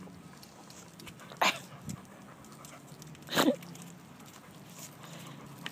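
Two dogs play-wrestling, with two short, sharp barks about two seconds apart, one near the start and one past the middle.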